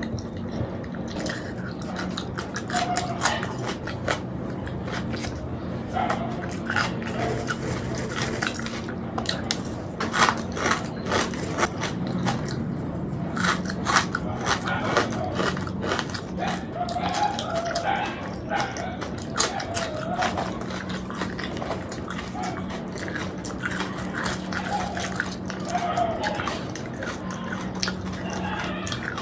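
Close-miked chewing and wet mouth sounds of a man eating soft fried puri with saucy chickpea curry, with many small smacks and clicks. A faint steady low hum sits underneath.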